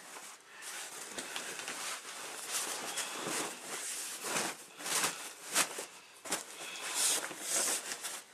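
Irregular rustling and swishing of a fabric sheet and crib bedding being handled and fitted, with occasional soft knocks.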